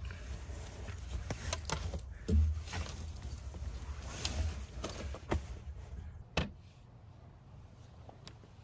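Sleeping bags and bedding handled and shifted inside a capped truck bed: fabric rustling with scattered knocks and bumps against the wooden platform, the loudest thump about two and a half seconds in and another sharp knock about two thirds of the way through.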